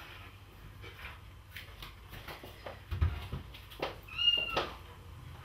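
A kitten meows once, briefly, near the end, over a few light knocks and a soft thump from someone moving about the room.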